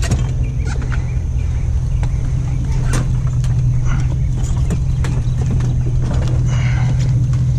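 Truck engine idling steadily, a low hum, with scattered knocks and a brief clatter of scrap being handled.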